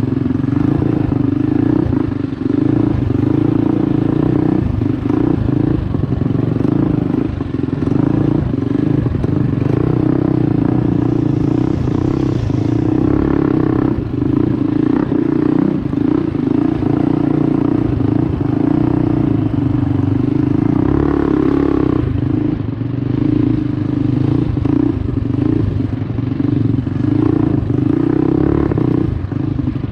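Mini bike's Predator 212 Hemi single-cylinder engine, fitted with a Mikuni carb, header and muffler, running under steady throttle while ridden, swelling briefly a couple of times. The bike clatters and knocks over the rocky dirt trail.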